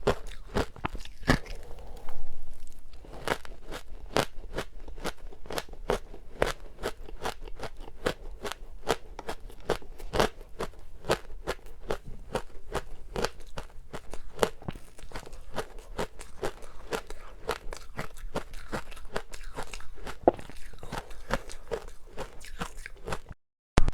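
Close-up chewing of frozen matcha ice: a steady run of crisp crunches, about two or three a second, with a louder bite about two seconds in. The sound cuts out briefly near the end.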